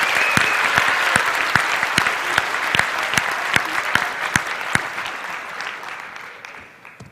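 Audience applauding, many hands clapping together, the clapping thinning out and fading away over the last two seconds.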